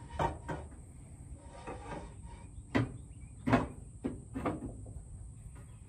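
A handful of short knocks and clunks of parts being handled, about six spread over several seconds, the loudest two close together past the middle.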